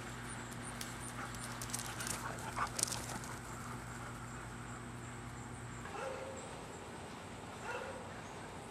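A dog making faint vocal sounds, with two short ones in the second half, over a low steady hum that stops partway through.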